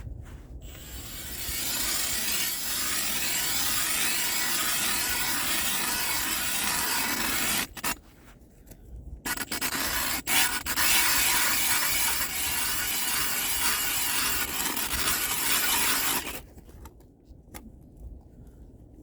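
Eskimo ice auger driven by a Milwaukee Fuel brushless cordless drill, cutting a hole through the pond ice with a steady scraping grind. It runs for about six seconds, stops briefly around eight seconds in, then runs again for about seven seconds before stopping.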